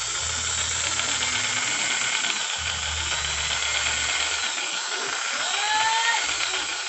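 Tolsen electric jigsaw running with no load, its blade stroking in the air, with the orbital action switched on. It is a loud, steady motor noise with a brief rise and fall in pitch about five and a half seconds in.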